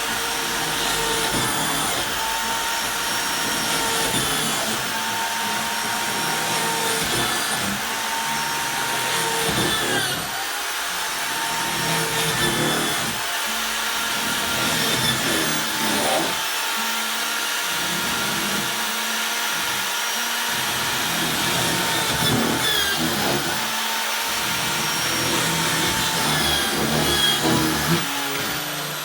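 Electric drill running, boring starter holes for a saw blade; the motor's pitch dips and recovers every few seconds as the bit bites in and eases off.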